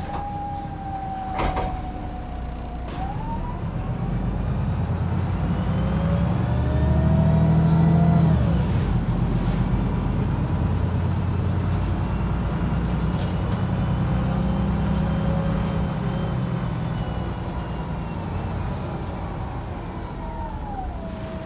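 Wright Pulsar 2 single-deck bus's diesel engine heard from inside the saloon, pulling harder with a rising gearbox whine, then dropping back at a gear change about eight seconds in. It then runs on steadily with a high whine and eases off near the end. A single sharp click comes about a second and a half in.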